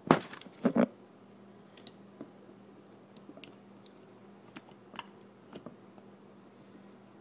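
A few loud handling knocks in the first second, then sparse faint clicks and ticks of a screwdriver turning screws into an outboard carburetor, over a faint steady hum.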